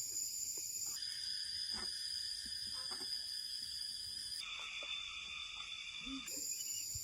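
Steady high-pitched insect chorus. Its pitch jumps abruptly a few times, about a second in, near the middle and near the end, with faint scattered knocks underneath.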